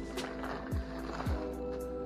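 Background music: a beat of deep bass drum hits that drop in pitch, with ticking hi-hats over held chord tones.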